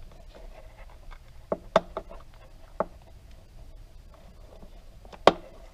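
Light clicks and taps of hard plastic as the cord wires are pressed into the Schumacher battery maintainer's plastic case. There is a cluster of small clicks around two seconds in and one sharper click near the end.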